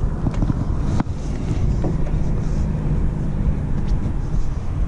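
Wind buffeting the microphone as a loud, steady low rumble, with a faint steady hum underneath and a sharp click about a second in.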